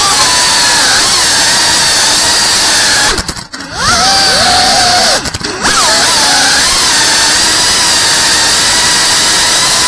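3.5-inch cinewhoop FPV drone's motors and propellers whining loudly, the pitch shifting with throttle. Twice, about three seconds in and again about five seconds in, the throttle is cut briefly: the sound falls away and the whine glides down and back up as power returns.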